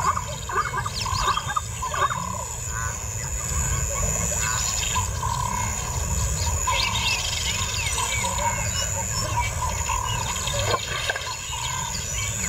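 Bush ambience of birds chirping and calling, many short calls scattered throughout, over a steady high-pitched tone and a low rumble.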